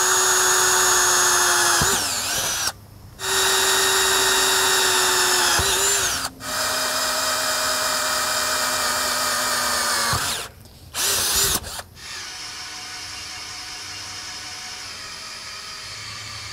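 Cordless drill boring holes through steel track and frame, its motor whining steadily in several runs with short stops and pitch dips as the trigger is let off. About twelve seconds in it settles into a quieter steady run.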